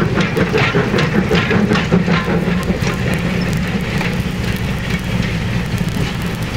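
Steady low mechanical rumble with rapid, evenly spaced clicking that gives way to a denser clatter after a few seconds.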